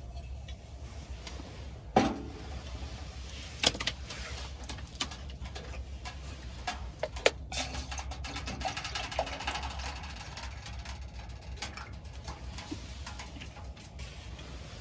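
Steady low rumble of a pellet stove burning, with a few sharp clanks as a metal mug is handled on the steel stovetop. Water then pours from a plastic bottle into the mug for a few seconds, about halfway through.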